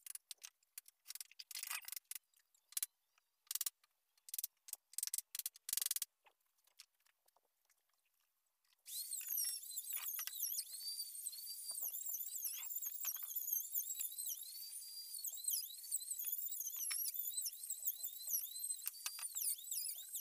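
A pen scratching over a wooden door panel in a series of short strokes as lines are marked along a straightedge. From about nine seconds in, a dense run of high-pitched squeaky chirps starts abruptly and goes on steadily.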